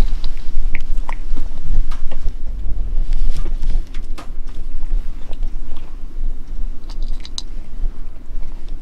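Tabby-and-white domestic cat eating dry kibble: repeated crunching and chewing with sharp clicks, over a steady low rumble.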